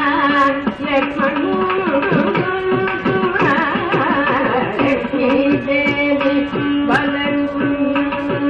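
Carnatic classical music in raga Pantuvarali, rupaka tala: a melody with wavering gamaka ornaments over a steady tanpura drone, with frequent mridangam strokes.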